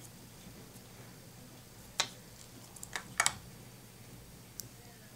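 Small plastic switch-harness parts clicking as they are handled and fitted together: a sharp click about two seconds in, a quick double click just after three seconds, and a fainter click near the end.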